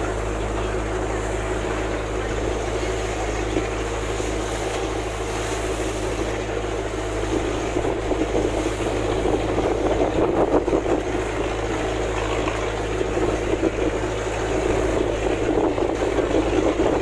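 A motorboat engine running with a steady hum over the wash of the sea, the wash swelling about ten seconds in and again near the end.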